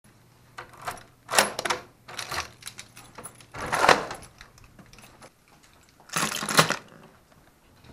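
A ring of keys jangling while a key is worked in a door's deadbolt, then the doorknob turns and the door opens, in a series of metallic rattles and clicks. The loudest clatter comes about four seconds in, and a last jangle of the keys about six seconds in.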